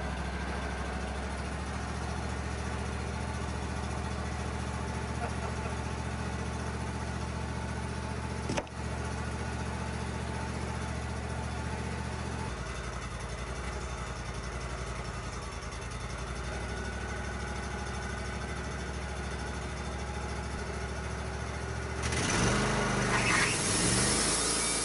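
Engine of a Wood-Mizer LT35 hydraulic portable sawmill running steadily. About 22 seconds in, the sound grows louder and hissier as the band blade goes into a Douglas fir log.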